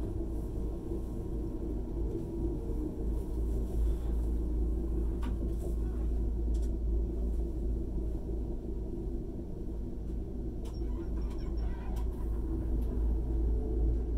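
Steady low rumble heard inside a passenger car of an ICE high-speed train as it runs along the track, with a few faint clicks and knocks partway through.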